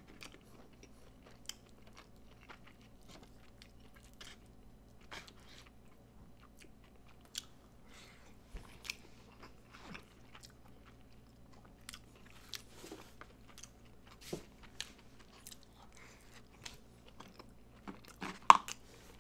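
Close-miked chewing of a loco moco of hamburger patty, rice and gravy: soft, scattered wet mouth clicks and smacks, with a sharper click near the end.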